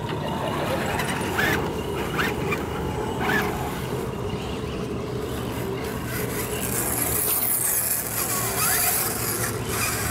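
Radio-controlled scale crawler trucks driving over dirt: a steady hum of small electric motors and drivetrain gears.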